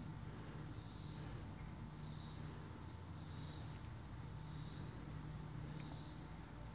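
Insects, crickets or similar, chirping in pulses about once a second over a steady high trill and a low hum.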